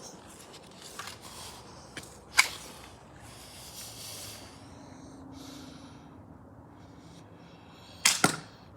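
Spring-powered BB gun firing: a sharp crack about two and a half seconds in, then another shot with a quick double clack near the end.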